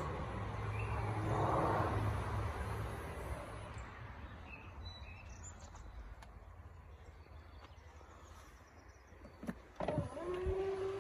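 Electric power tailgate of a Mercedes C-Class estate opening, its motor humming steadily for about three seconds as it lifts. Near the end there are a couple of clicks, then the motor starts again with a steady whine as the tailgate begins to close.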